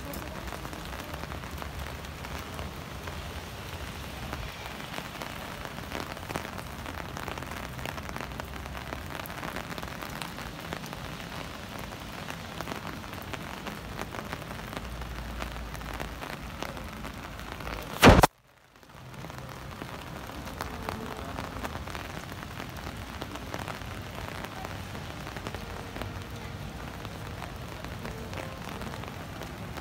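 Steady rain falling on wet city pavement, an even hiss of drops. One sharp, loud click about two-thirds of the way through breaks it, followed by a moment of near silence before the rain sound returns.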